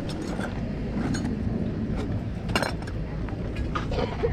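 Small metal objects clinking as they are handled and sorted: a few sharp clinks, loudest about two and a half seconds in, over a steady low outdoor rumble.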